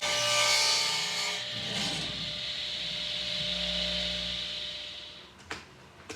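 Boards being planed: a continuous scraping of a plane cutting wood that dies away, followed by two sharp knocks near the end.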